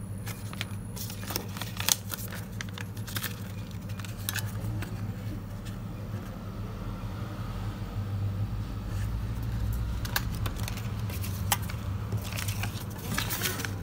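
Cotton-paper 100-euro banknotes rustling and crackling as they are handled and flexed, in scattered short crisp crackles, over a steady low hum.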